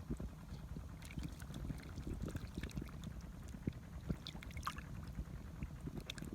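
Shallow, muddy water sloshing and splashing in short irregular bursts over a low rumble, as hands work through the water catching catfish.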